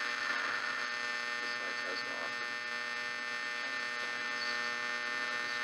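A 1961 Silvertone 1207 transistor radio on bench power giving out a steady buzzing hum from its speaker, the first sign of life from a set that came in with no power. The repairer hopes fresh capacitors will improve it.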